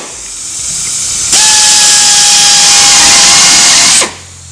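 Electric drill with a 1/4-inch bit drilling a new hole through the Jeep TJ's body. A harsh hiss builds, then about a second in the drill runs at full speed with a steady whine for nearly three seconds before cutting off.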